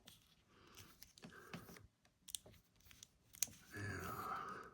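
Faint clicks and light rustling of a plastic action figure being handled, its arm joints moved into a pose. A sharp click comes about two and a half seconds in and another about a second later, and a soft breathy noise near the end.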